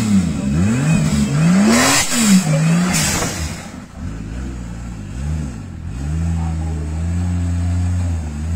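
A modified off-road 4x4's engine revving hard in quick up-and-down blips while the vehicle struggles on a steep mud bank. A rushing burst of noise comes around two seconds in, and then the engine holds a steadier, higher note from about six seconds in.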